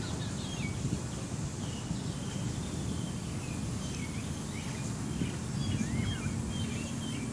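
Birds chirping with many short, quick calls over a steady low rumble of wind on the microphone.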